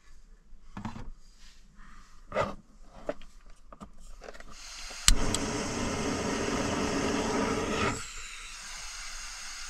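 A few light handling knocks, then a Jetboil backpacking gas stove is turned on and lit: a sharp click of the igniter about five seconds in, followed by the burner's steady gas hiss, which eases a little near the end.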